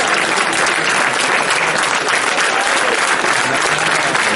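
Large crowd applauding, a dense steady clatter of many hands clapping.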